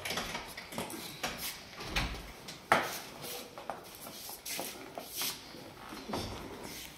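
A plastic bag rustling and crinkling with scattered sharp clicks as a German shepherd pushes its nose into it, the sharpest click nearly three seconds in.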